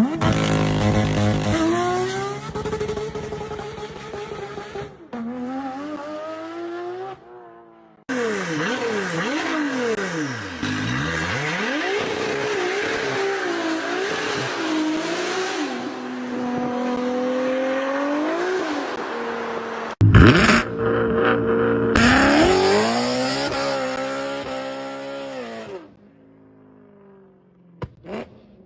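A series of high-performance car engines revving hard and accelerating, their pitch climbing and falling, with several cars passing in quick falls of pitch. The sound jumps abruptly from one car to the next a few times and is quieter near the end.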